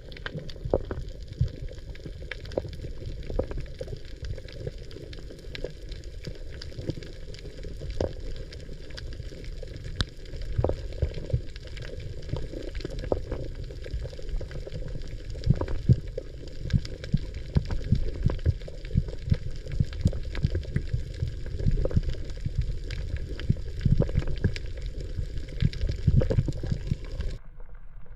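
Underwater sound picked up through an action camera's waterproof housing: a muffled low rumble of moving water with many scattered sharp clicks and knocks. The higher hiss drops out about a second before the end.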